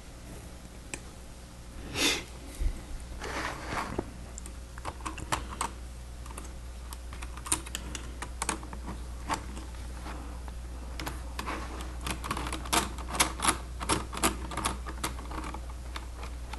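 Plastic Lego Technic pieces clicking and rattling as they are handled and pushed together. The clicks are quick and irregular and come thicker in the second half, with a brief rustle of parts about two seconds in.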